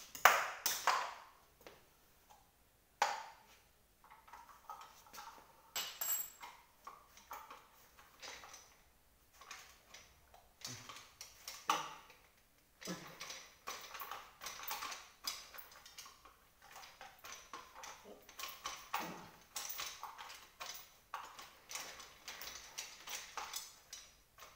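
Irregular metallic clinks, taps and knocks of hand tools working on an office chair's metal base, with a sharp ringing strike right at the start and another about three seconds in.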